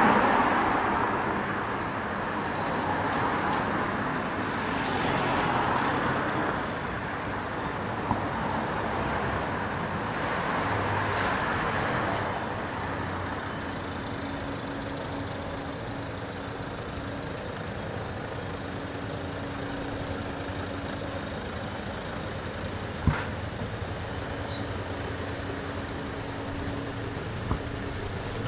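Street traffic: several vehicles pass by one after another over the first dozen seconds, then a steadier traffic hum, with one sharp knock about 23 seconds in.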